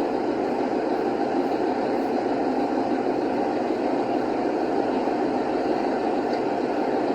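A car driving at highway speed: a steady, unbroken rush of road and tyre noise.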